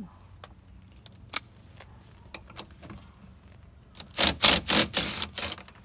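Metal hand tools clicking and clattering: a few light clicks, then about four seconds in a burst of loud, rapid clattering strokes from sockets and a ratchet being handled.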